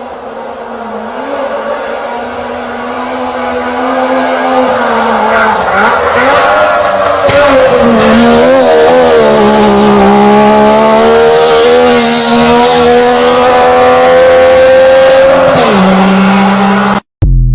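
Saab 96 engine running, growing louder over the first several seconds. Its pitch wavers a little and then holds steady. The pitch drops shortly before the sound cuts off suddenly.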